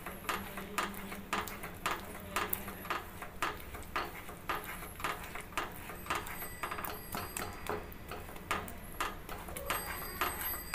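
Wooden spatula stirring and scraping thick ash-gourd halwa in a nonstick frying pan, giving irregular soft knocks and scrapes several times a second as the mixture cooks down and thickens.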